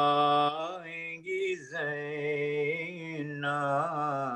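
A solo unaccompanied male voice chanting an Urdu marsiya (mourning elegy). A long held note breaks off about half a second in, and the voice moves into a slow, wavering, ornamented phrase.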